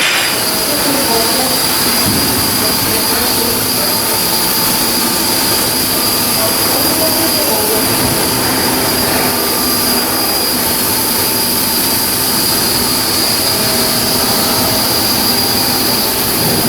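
Steady, loud shipyard machinery noise: a continuous hiss with a high, steady whine over it.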